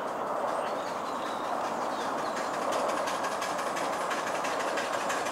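A 7¼-inch gauge miniature steam locomotive hauling a passenger train draws nearer on the track, a steady rolling noise with rapid clicking that grows stronger in the second half.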